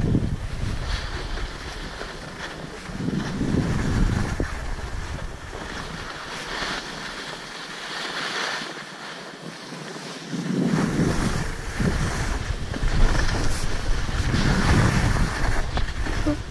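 Wind rumbling on a helmet-camera microphone while skiing, with skis hissing and scraping over snow in swells every few seconds. The wind rumble drops away for a few seconds midway.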